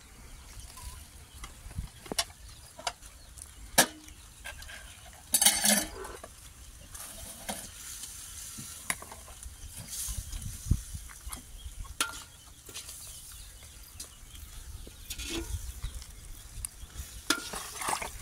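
Wet squelching and handling noises as hands pull the guts out of a catfish's opened belly over a basin of water, with scattered sharp clicks and one louder noisy burst about five seconds in.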